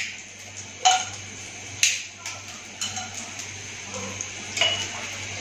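Whole spices frying in hot butter in a pan: a steady sizzle with several sudden pops and crackles about a second apart.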